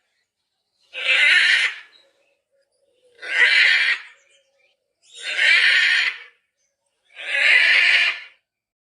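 Macaw squawking: four loud, harsh calls of about a second each, spaced roughly two seconds apart.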